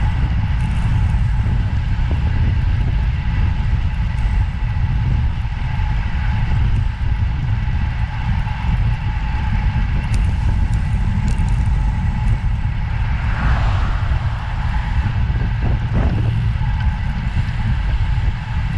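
Steady low rumble of a moving vehicle, with a faint steady whine above it.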